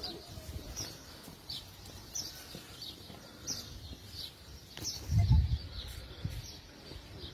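A small bird calling over and over, a short high chirp that falls in pitch, roughly one or two a second. A brief low rumble about five seconds in is louder than the birdsong.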